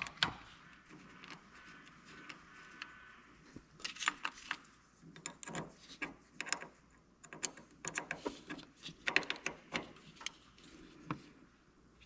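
Small hand wrench tightening a car battery terminal: a run of irregular metallic clicks and taps.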